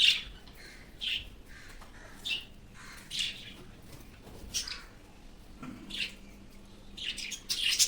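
Caged pet budgerigars giving short chirping calls, roughly one a second.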